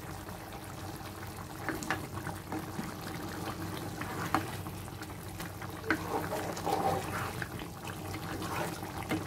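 Chicken curry gravy boiling hard in a pan on high flame: a steady bubbling with scattered small pops.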